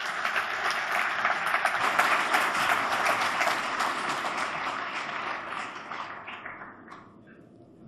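Audience applauding, fading away about a second before the end.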